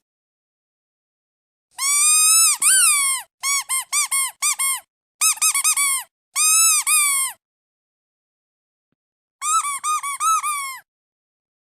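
Rubber duck squeak toy being squeezed: one long squeak about two seconds in, then runs of short quick squeaks, a pause of about two seconds, and another quick run near the end.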